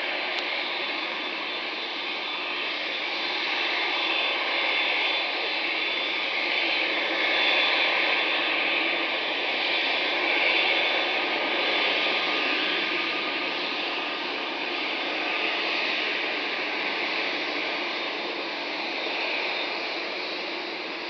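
A KLM Boeing 787-10's GEnx-1B turbofans running at low thrust as the airliner taxis and turns onto the runway. It is a steady jet rush with a high whine from the engine fans, swelling slightly midway.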